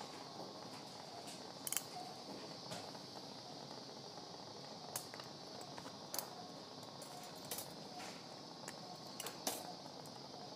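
Operating-room background hiss with a handful of sharp, isolated clicks from surgical instruments being handled during suturing.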